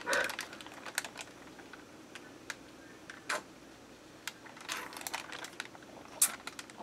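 Scattered light clicks and crinkles of a thin plastic drink bag handled in the hands while someone drinks from it, with a sharper crackle about six seconds in.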